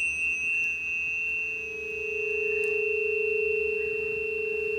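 Planetary tuning forks ringing for the Venus semi-sextile Uranus aspect: a clear high ring from the strike just before, and a lower, pure steady tone that swells in about a second in and becomes the louder of the two.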